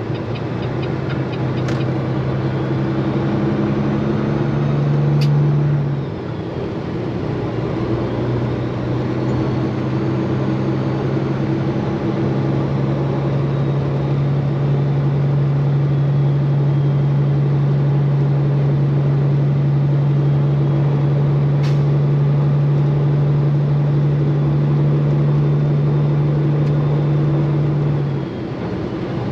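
Straight-piped Peterbilt 389 semi truck's diesel engine running steadily under way. Its loudness dips briefly about six seconds in and again near the end, and there are a few sharp clicks.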